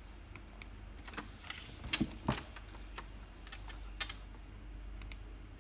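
Keys of a laptop keyboard being tapped: about a dozen light, irregular clicks, with a louder pair about two seconds in.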